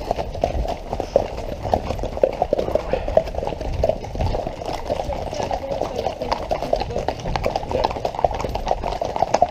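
Many horses' hooves clip-clopping on a tarmac road, overlapping hoofbeats from a group of riders on the move.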